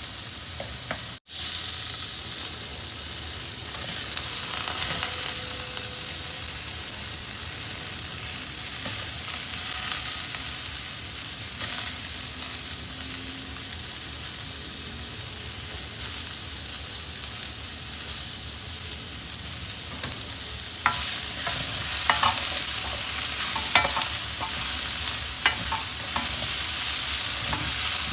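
Food sizzling in a hot pan while it is stirred, a steady frying hiss. In the last several seconds a utensil scrapes and clicks against the pan repeatedly. There is a momentary dropout about a second in.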